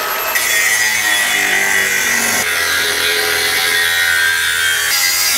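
Small cordless grinder with a cutting disc slicing through the steel bumper bar to trim it flush. It whines up to speed at the start, cuts steadily, and stops near the end.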